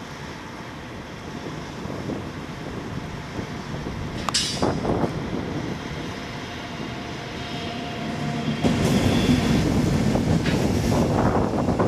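Train running on the adjacent tracks with a steady rumble that grows clearly louder about eight and a half seconds in. A short high metallic squeal comes about four seconds in.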